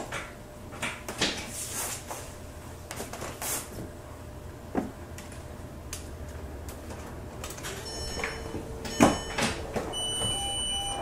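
An Audi S8's rear parking-sensor warning comes on after a few clunks from the shifter and cabin, ending in a continuous high beep, the sensors' warning of an obstacle close behind as the car is put in reverse near a wall. The engine idles low underneath.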